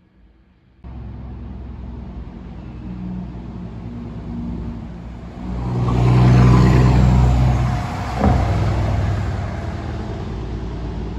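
Diesel engine of a semi coal truck running under power as it passes, the engine note building to its loudest about six seconds in and then easing off. There is a sharp knock about eight seconds in.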